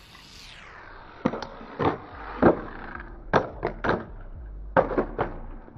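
A brief falling whoosh, then a series of about ten sharp knocks and thuds, roughly two a second at irregular spacing, over a faint low rumble.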